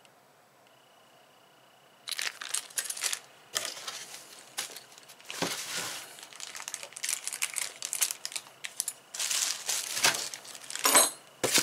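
Clear plastic packaging crinkling in irregular bursts as it is handled, starting about two seconds in after a short stretch of near quiet.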